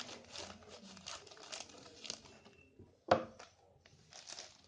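Cardboard and plastic packaging rustling and crinkling as an SSD box is unwrapped by hand, then one sharp knock about three seconds in, followed by a little more rustling.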